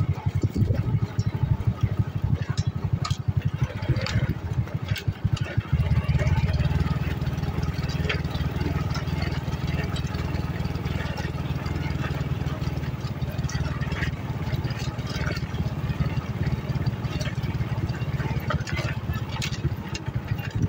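An old motorcycle's engine running at low riding speed with a rapid low pulse. Knocks and rattles from the bike over a rough stony track, most in the first several seconds, after which the engine sound is steadier.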